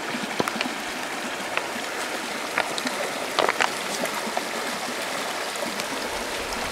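Creek water running steadily, with water from a squeeze-pouch filter trickling into a plastic cup. A few light clicks come from handling the pouch and filter, the most noticeable about two and a half and three and a half seconds in.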